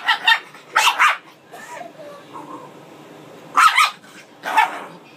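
Puppy yapping in short, high barks: a quick run of yaps in the first second, then two more about three and a half and four and a half seconds in.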